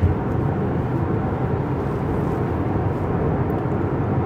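Steady road and engine noise of a moving car, heard from inside the cabin, with one brief thump right at the start.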